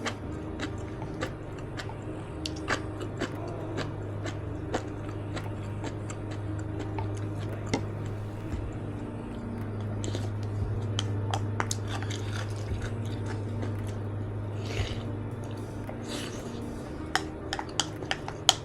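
Close-miked chewing of a mouthful of kimchi stew: many small wet mouth clicks and smacks, irregular and continuous, with a couple of short hissing sounds near the end.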